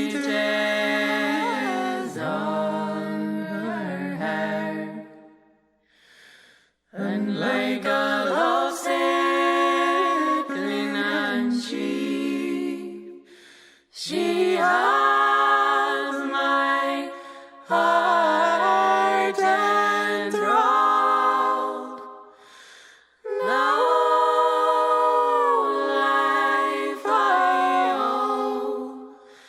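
Unaccompanied singing of a song, sung in long phrases with short breaths between them.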